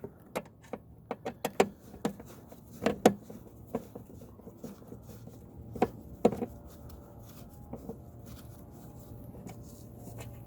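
Irregular metallic clicks and knocks of hand tools and loose bolts being handled while bolts are taken out of a lawn mower's wheel and drive housing, some with a short ring, over a faint steady hum.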